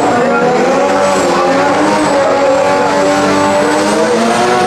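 Drag-race VW Mk3 Golf's turbocharged Volvo T5 2.3-litre five-cylinder engine running at low revs, its pitch wavering gently up and down.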